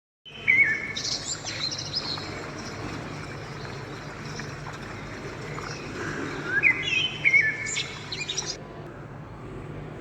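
Bird chirps in two short bursts, about half a second in and again about six and a half seconds in, over a steady low hum.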